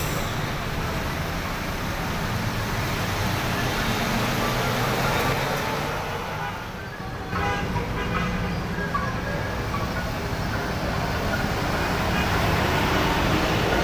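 Busy street traffic: diesel engines of buses and trucks running and passing, with steady road noise. The sound dips briefly about halfway through, then picks up again.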